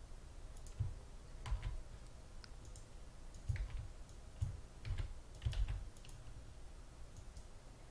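Scattered keystrokes and clicks on a computer keyboard, about six separate taps with low thuds, spread over the first six seconds.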